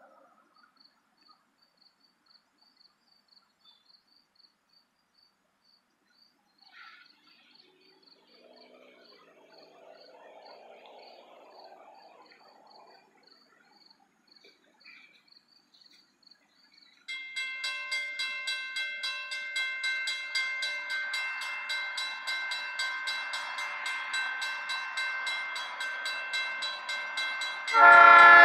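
Railroad grade-crossing bell starts ringing about two-thirds of the way in, a steady repeating ring as the crossing activates for an approaching train. Just before the end the horn of a GE B23-7 diesel locomotive comes in, much louder than the bell.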